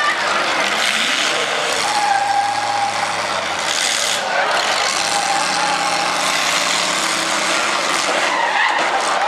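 Demolition derby cars' engines revving hard, with tyres spinning and skidding on the wet arena floor.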